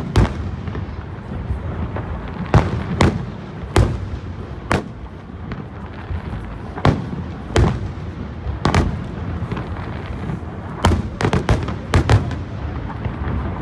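Fireworks shells bursting overhead, a sharp bang every second or so with a rapid cluster of bangs near the end, over the continuous low rumble of the display.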